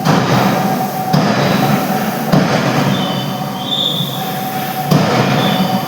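Heavy machinery in a forging shop running with a steady hum, a high metallic squeal that comes and goes, and a few sharp metallic clanks.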